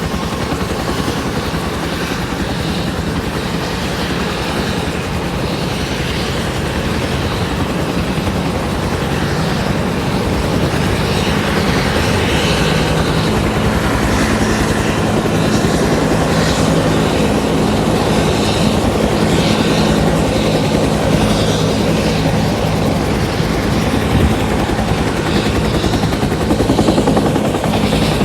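Bell 205 helicopter, single turbine engine and two-blade main rotor, running loud and steady; a steady low hum strengthens and the sound grows a little louder about ten seconds in.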